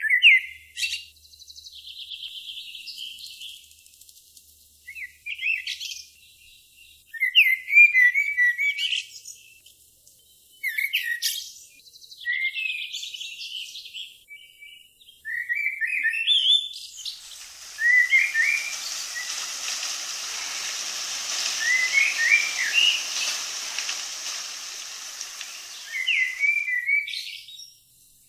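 Songbirds chirping and singing in short, repeated phrases with pauses between them. Through the second half a steady rushing hiss joins in under the song, then fades near the end.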